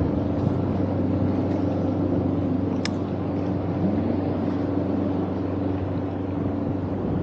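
A motorboat engine running steadily on the water, a low even hum, with one short tick about three seconds in.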